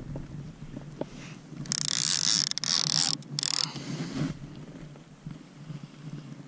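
Overhead fishing reel being worked against a hooked fish, a steady mechanical whirr, with a loud high hissing rush lasting about two seconds near the middle.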